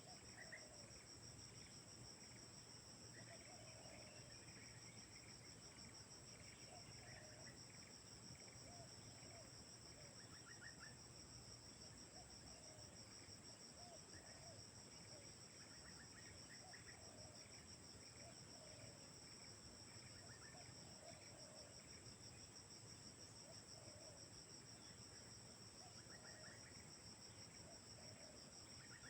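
Spotted doves cooing faintly in repeated short low phrases, over a steady chorus of crickets with a fine pulsing high drone. Small higher chirps come in now and then.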